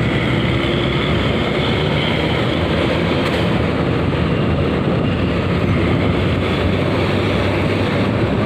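Steady engine hum and road noise of moving traffic, heard from close behind an intercity coach bus.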